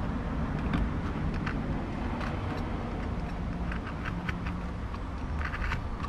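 Scattered small clicks and rustles of hands working at a car seat's frame and foam, over a steady low rumble; the clicks bunch together a little after five seconds.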